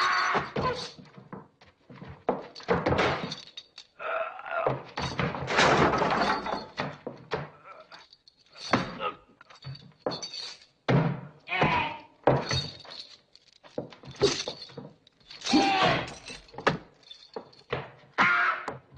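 Film fight sound effects: a fast run of thuds, blows and crashes, with glass breaking, and grunts and shouts from the fighters.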